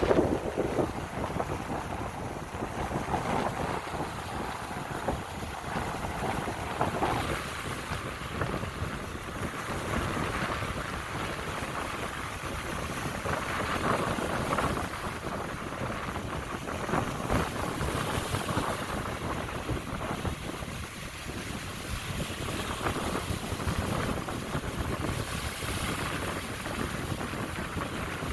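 Lake Michigan waves washing onto the shore, a continuous rushing surf that swells and eases every few seconds, with wind buffeting the microphone.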